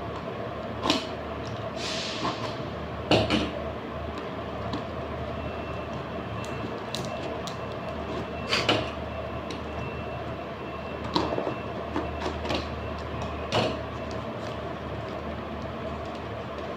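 A parcel being unpacked by hand: scattered knocks and taps, with a brief rustle of packaging about two seconds in, over a steady low hum.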